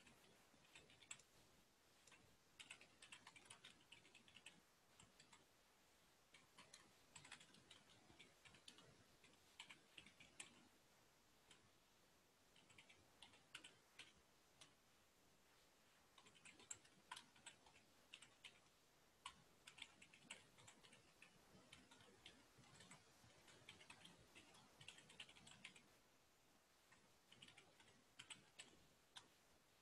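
Faint typing on a computer keyboard: bursts of quick key clicks with short pauses between them.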